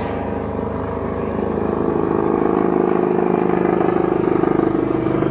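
An engine running steadily with a low, pulsing hum that grows louder about two seconds in.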